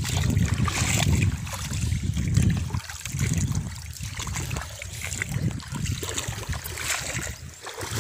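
Shallow river water running and trickling over stones, with a low, uneven rumble that swells and fades over it.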